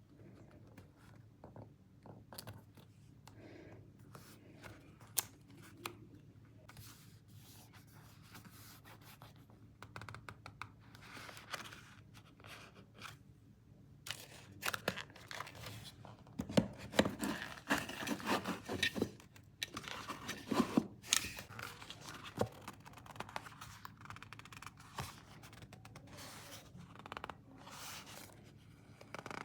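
Close-up paper crafting sounds: paper rustling, scraping and tearing, with crisp clicks. It is sparse at first and busiest from about halfway through to about three-quarters of the way.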